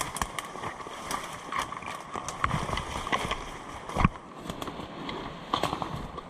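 Running footsteps with kit rattling: irregular knocks and clicks, and a heavier thump about four seconds in.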